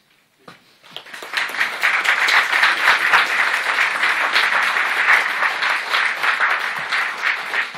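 Audience applauding, many hands clapping at once, starting about a second in and tapering off near the end.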